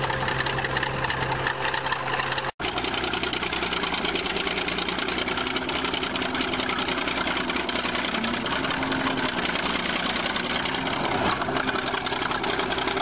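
Old crawler bulldozer's engine running steadily. About two and a half seconds in, the sound breaks off for an instant and resumes noisier, as the dozer crawls over a car.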